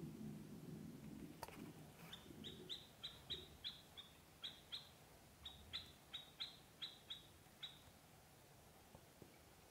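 Ducklings giving a run of short, high peeps, two or three a second, from about two seconds in until near the end. A low muffled rumble comes before them in the first second or two.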